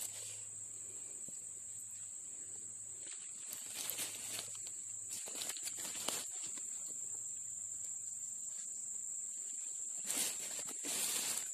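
Steady high-pitched insect chorus, with a few brief rustles of dry leaves and twigs being moved.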